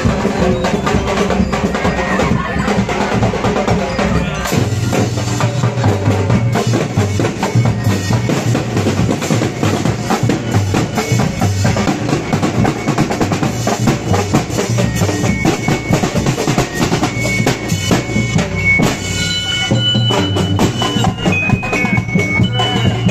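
Parade drum corps playing: snare drums and bass drums beating a steady rhythm, with a few high held notes joining in the last few seconds.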